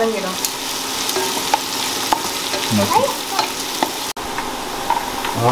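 Sliced onions frying in hot oil in a biryani pot, sizzling steadily while being stirred, with scattered clicks of the spoon against the pot. The onions are being sautéed toward a caramelised brown.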